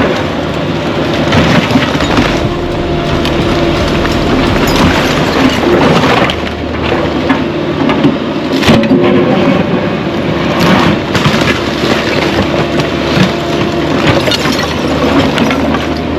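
Caterpillar 305E2 mini excavator's diesel engine running steadily, with repeated cracking and crashing of wood and debris being broken and handled during demolition.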